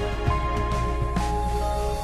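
Background music: held melodic notes over a steady beat.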